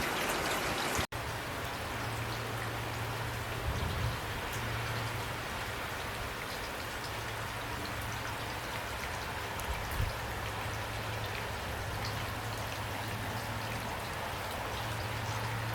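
Steady rainfall on leaves, an even hiss with scattered individual drop taps. About a second in, the sound cuts out for an instant and resumes as a slightly softer rain, with a faint low hum underneath.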